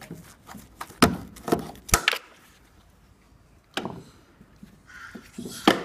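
Sharp, irregular metal knocks of a steel tool worked against rusted strut-mount nuts, cut into segments to split them off their seized studs. About half a dozen knocks, the loudest about a second in and another near the end.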